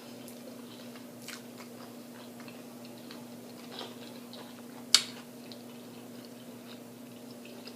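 Close-miked chewing: soft scattered mouth clicks and smacks, with one sharp, louder click about five seconds in.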